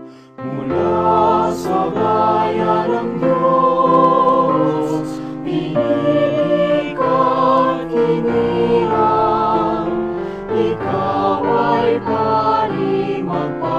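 Background music: a choir singing with accompaniment, starting about half a second in after a brief dip.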